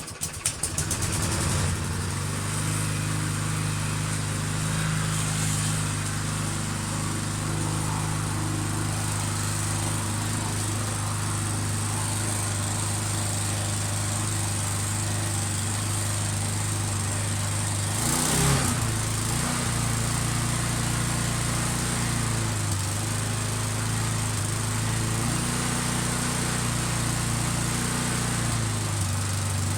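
Petrol lawn mower engine catching and running up at the start, then running steadily. About 18 s in there is a brief louder surge, and the engine note dips and rises a few times after it.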